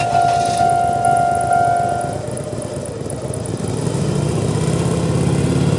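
Japanese railway level-crossing warning alarm, the older standard electronic type, sounding a single-tone strike about twice a second, then stopping about two seconds in. An engine sound then builds up and grows louder.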